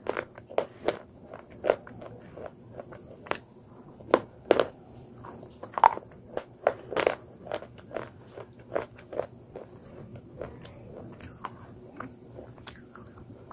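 Slate pencil being bitten and chewed: a run of sharp, irregular crunching cracks, loudest in the middle.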